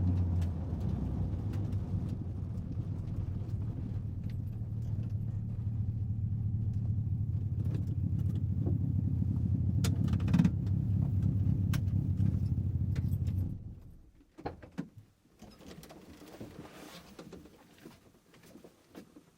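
A car's steady low running hum that cuts off suddenly about two-thirds of the way in, followed by a few faint clicks and knocks.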